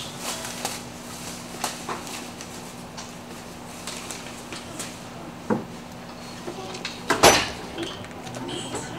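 Scattered knocks and clinks of tools and car parts being handled, with a sharper bang about seven seconds in. A steady low hum runs underneath and stops about then.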